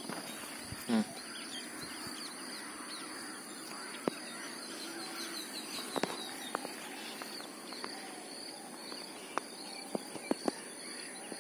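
Quiet lakeside ambience with birds calling, broken by a few short sharp clicks and a splash as a hooked tilapia is reeled in and splashes at the surface about six seconds in, then more ticks near the end as it is landed.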